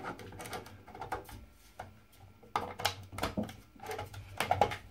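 Irregular plastic clicks and light knocks as a 3D-printed plastic nut is threaded by hand onto the plastic rainwater collector fitting, the parts tapping against the sheet-metal downpipe.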